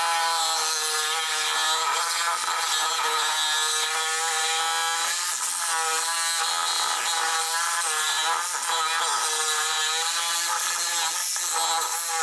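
A DeWalt 20V cordless reciprocating saw with a Diablo bi-metal blade running steadily as it saws through the triple-layer hardened strip steel of a Catstrap on an exhaust pipe, a steady whine whose pitch wavers with the strokes. The hardened steel is wearing the blade dull.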